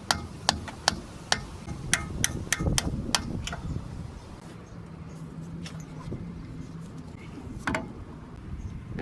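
Hammer striking a small chisel, metal on metal: about ten sharp strikes in the first three and a half seconds, then one more near the end. The chisel is prying a CV axle's inner joint out of the transmission.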